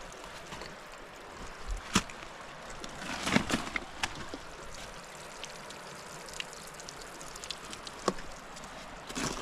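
Steady rush of creek water below a waterfall, broken by a few sharp knocks about two, three and eight seconds in.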